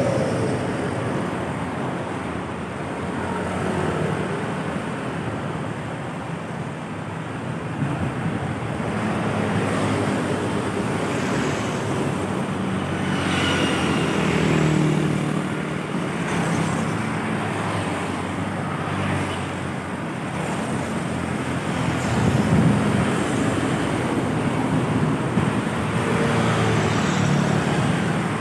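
Road traffic noise: heavy vehicle engines running and tyres passing on the road, swelling and easing as vehicles go by.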